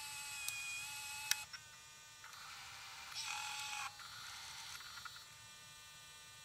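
MiniDV camcorder tape-insert servo mechanism whirring with a thin steady whine. A sharp click comes about a second in, then a louder stretch of whirring follows, and it settles to a faint hum after about five seconds.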